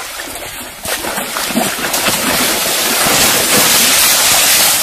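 Water splashing and churning as a water buffalo thrashes in a muddy pool: a loud rushing noise that builds over the first few seconds, then holds.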